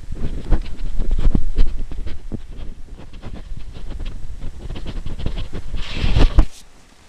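Footsteps crunching through snow, with wind rumbling on the microphone. About six seconds in, a louder hiss lasts under a second, then the sound drops away.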